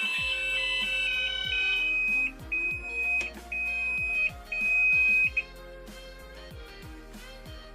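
Gent fire alarm sounders on test: several alarm tones sound together, then a single high tone pulses about once a second before cutting off about five seconds in. Pop music plays underneath throughout.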